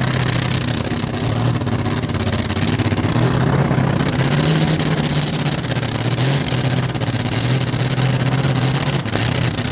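Modified pulling tractor's naturally aspirated Continental V12 engine running hard under full load as it drags the weight-transfer sledge. It is a loud, steady engine note that wavers a little in pitch.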